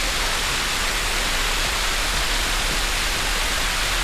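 Three Spout Waterfall rushing, a steady, even roar of falling water.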